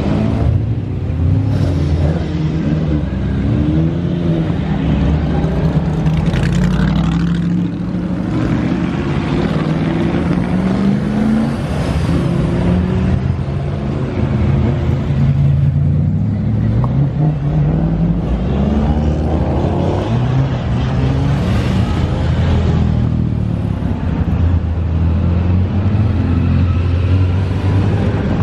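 Historic GT and sports racing cars, AC Cobras among them, rolling past one after another at low speed, their engines rumbling with the revs rising and falling as the drivers blip the throttle.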